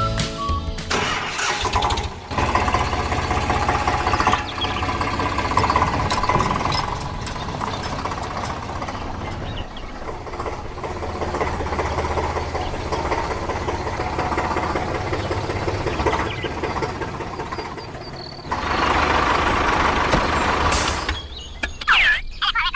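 A radio-controlled model construction vehicle running, its motor or engine sound rising and falling, dipping about ten seconds in and getting louder again near the end.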